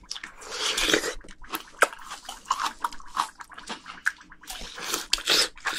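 Close-miked wet chewing of a bite of fresh cherry plum, with irregular clicks and smacks of the mouth.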